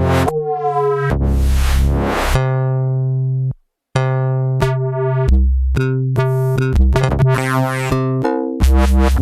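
Electronic house pattern playing from an Elektron Digitakt II sampler: a chopped drum loop with kick, snare and hats under heavy pitched dubstep-style synth bass stabs. The playback stops for a moment about three and a half seconds in, then starts again.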